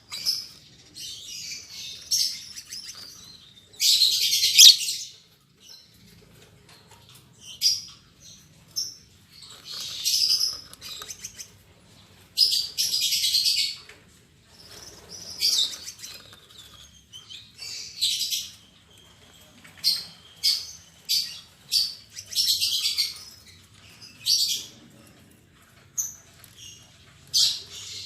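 Lovebirds chirping: short, sharp, high calls in irregular runs, broken by a few longer, harsher chattering bursts of about a second each.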